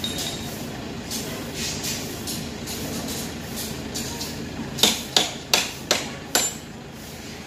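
A quick run of about five hammer blows, roughly three a second, on formwork being stripped from set concrete, about two-thirds of the way in, over a steady background of construction-site noise.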